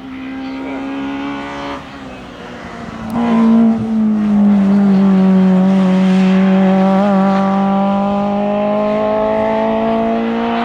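Race car engine accelerating hard under full throttle on a hill climb. The pitch rises, drops at a gear change about two seconds in, then climbs again and holds loud at high revs.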